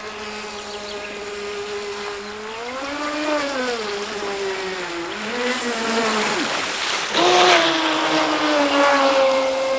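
Remote-controlled speedboat's battery-powered electric motor whining as the boat runs across the water, its pitch rising and falling with the throttle. The whine drops out briefly about six and a half seconds in, then comes back louder along with a hiss of spray as the boat turns in a tight circle, and settles into a steady whine near the end.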